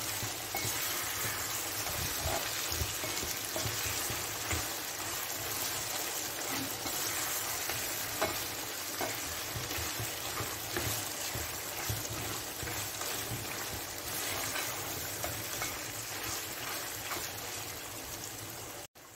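Mutton pieces sizzling as they fry in oil in a non-stick pan, stirred and turned with a spatula that scrapes and lightly knocks against the pan. The sizzle is steady and cuts off abruptly near the end.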